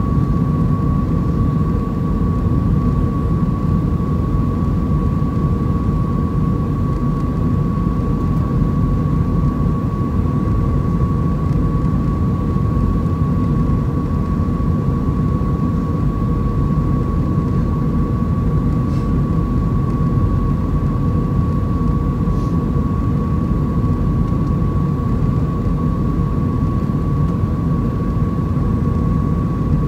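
Steady cabin roar of an Airbus A320 with CFM56-5A3 engines, heard from a seat over the wing during the approach with flaps extended. A steady high whine is held above the low rumble of engines and airflow.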